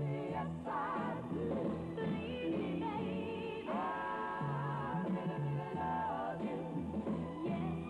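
Early-1960s pop song with a woman singing the lead over a bass line, holding one long wavering note about four seconds in.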